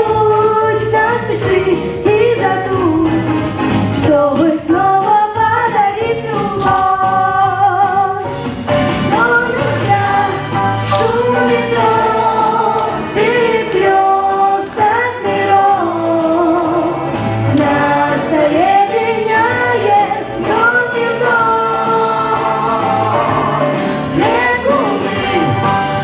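Female voices singing a pop-style song into handheld microphones over a backing track with a steady beat.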